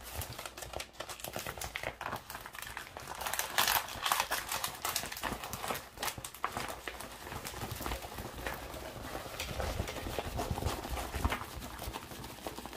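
A rolled diamond painting canvas under its plastic cover film being handled and rolled backwards to make it lie flat: dense rustling and crinkling with irregular light knocks.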